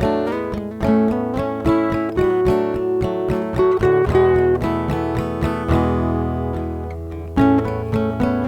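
Upbeat acoustic guitar tune, strummed and picked in a steady rhythm. About halfway through a chord is left ringing for around three seconds before the rhythm picks up again near the end.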